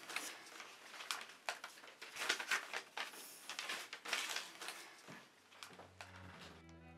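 A series of short sniffs and rustles of a paper envelope being handled. Bowed string music with a low held note comes in near the end.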